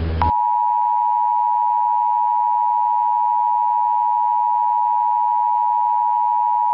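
A brief burst of static, then the Emergency Alert System attention signal: a loud, steady two-note alert tone that holds without a break.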